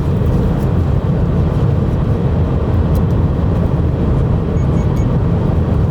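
Steady low rumble of a moving car, road and wind noise heard from inside the cabin.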